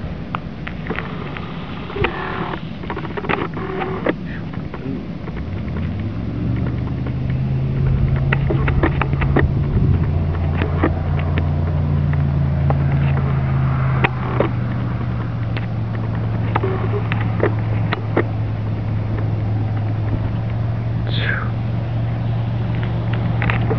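A motor vehicle's engine running steadily at idle, coming in about six seconds in, under scattered scuffling clicks and scrapes on gravel as a ground squirrel and a bull snake fight.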